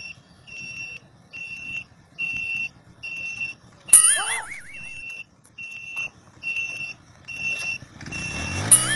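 An electronic beeper sounding a steady series of short high beeps, about three every two seconds. About four seconds in there is a sharp click with a brief warbling whistle, and near the end a low hum rises in pitch.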